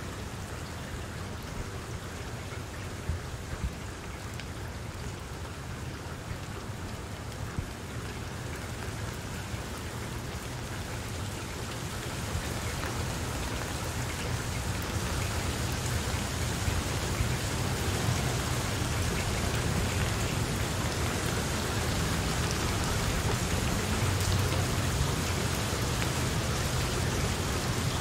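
Steady rain falling on broad papaya leaves, with scattered drops ticking. The rain grows heavier and louder from about halfway through.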